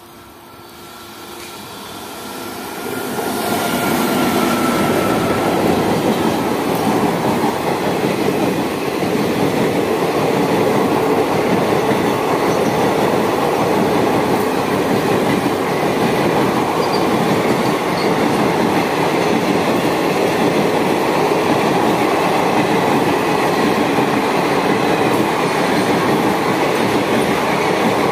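Indian express train, hauled by an electric locomotive, passing close by at high speed. The sound builds over the first four seconds as the train arrives, then holds as a steady loud rush of coaches rolling past on the rails.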